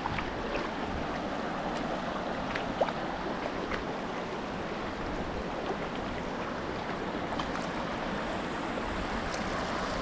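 Shallow, fast-flowing river rushing steadily over a bed of stones and pebbles.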